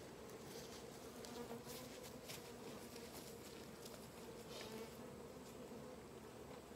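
A honey bee swarm buzzing in the air: a faint, steady, many-voiced hum.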